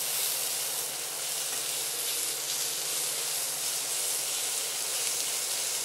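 Sliced red bell pepper, tomato, onion and leeks frying in oil in a nonstick pan, sizzling steadily with an even hiss while being stirred with a slotted spatula.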